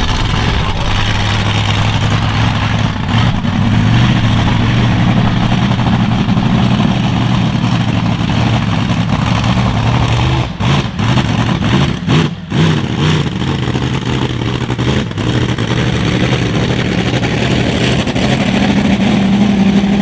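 Monster truck engine running loud under throttle. Its note breaks up and sputters a little past halfway, then comes back steady at higher revs near the end.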